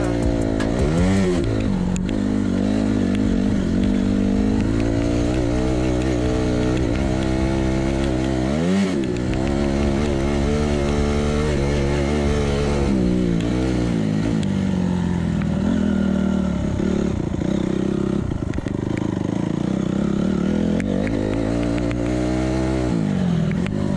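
Off-road motorcycle engine running under load, its revs rising and falling as the throttle is opened and closed. The revs drop sharply and climb again about a second in, near the middle and near the end.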